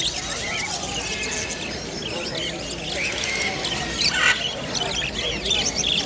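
Many caged pet birds chirping and squawking over the chatter of a crowd, with one louder squawk about four seconds in.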